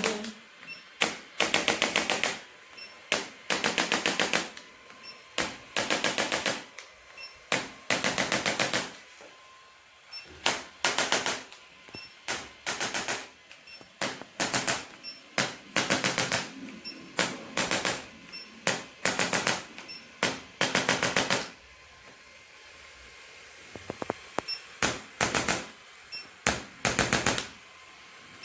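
Handheld electric chiropractic adjusting instrument firing short bursts of rapid clicking thrusts, about one burst a second, with a pause of a couple of seconds near the end.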